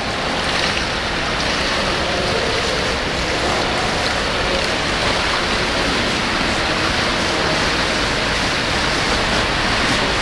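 Steady wash of pool water noise in an indoor pool: a freestyle swimmer and swimmers in nearby lanes splashing, heard as an even hiss with no separate strokes standing out.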